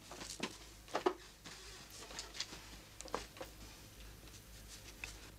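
Faint room tone with a low hum and a handful of soft clicks and knocks scattered through it, the loudest about a second in.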